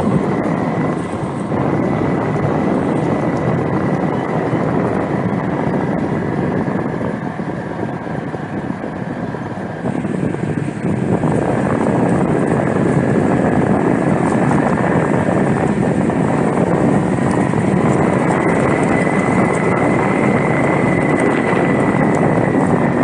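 Steady rushing noise of a moving vehicle with wind on the microphone, over a faint steady whine; it grows louder about ten seconds in.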